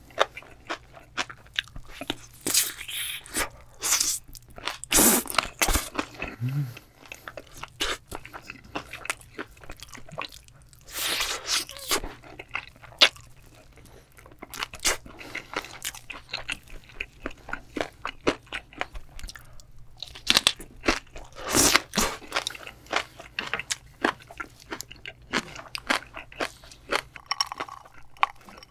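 Close-miked eating of sauce-coated Korean seasoned fried chicken: crunchy bites through the fried coating and chewing, in irregular bursts with louder runs of crunching.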